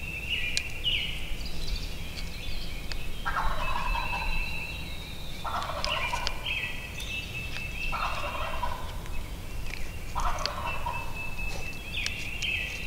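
Wild turkey gobbler gobbling four times, about two seconds apart, each gobble lasting about a second, over songbirds singing.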